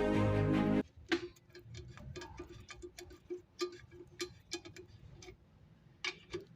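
Background music that cuts off about a second in, then rapid, even clicking at about five clicks a second from the tool turning the 8mm bolts that press the brake drum off its hub.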